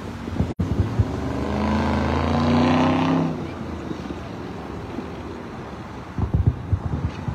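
A car passing on the highway below: its engine note climbs slowly as it swells and fades over about two and a half seconds, with tyre noise. Several short dull thumps near the end, from the distant fireworks.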